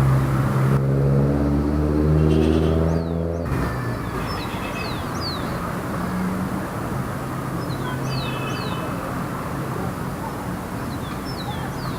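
Light city traffic: a vehicle's engine running close with a steady low hum that cuts off abruptly about three and a half seconds in, leaving a steady background of traffic noise. Small birds chirp three times over it.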